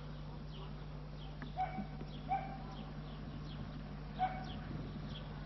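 A few short animal calls: two close together about two seconds in and one past four seconds. Faint, quick, high chirps run on throughout, over a steady low hum.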